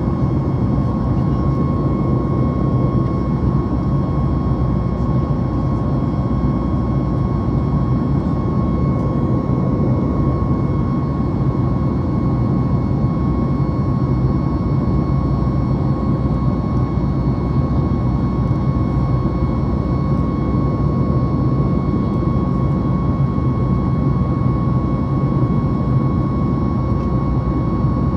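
Cabin noise of a Boeing 737 MAX 8 climbing through about 10,000 feet, with its CFM LEAP-1B engines running at climb power: a steady deep rush with a constant high tone above it.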